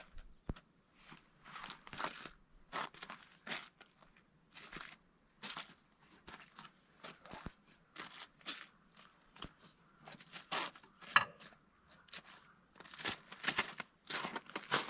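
Footsteps crunching unevenly, with one sharper knock about three-quarters of the way through.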